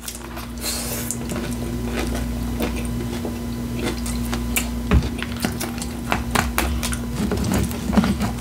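Close-miked eating of a taco salad: chewing and crunching with many sharp clicks, including utensil and dish sounds. A steady low hum runs underneath.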